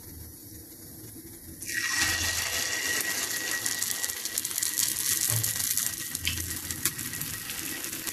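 Paniyaram batter sizzling in hot oil in the cups of a kuzhi paniyaram pan. A steady hiss starts suddenly about two seconds in, as the first batter goes into the oil.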